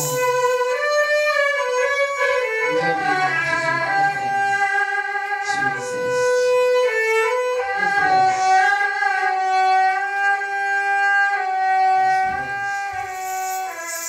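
Erhu (Chinese two-string fiddle) played with the bow, sliding between notes and then holding one long steady note for several seconds near the middle.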